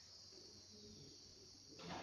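Faint, steady high-pitched chirring of insects such as crickets. Near the end a louder rustle of movement cuts in.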